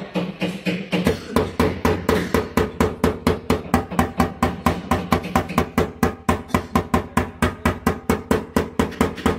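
Rapid, even tapping of a paintless dent repair tap-down tool on a car fender's painted steel panel, about five light strikes a second. The high spots ringing a dent are being knocked down while the dent is braced from behind, to relieve the stress in the metal.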